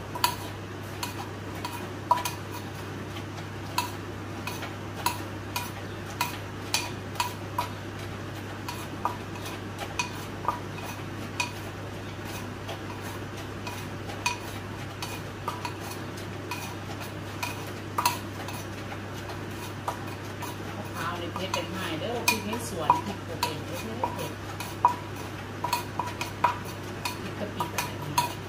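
Wooden pestle pounding in a terracotta mortar: irregular sharp knocks, roughly one or two a second. Near the end there is a few seconds of denser scraping and mixing. A steady low hum runs underneath.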